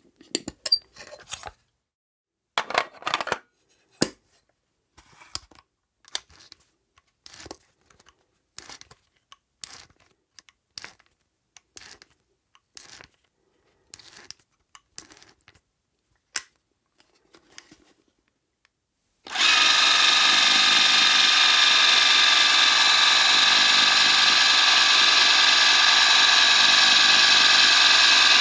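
Vintage 8mm turret cine camera: a string of separate mechanical clicks and short clattering bursts for the first two-thirds, then its spring-wound motor starts abruptly and runs with a loud steady whir of film transport.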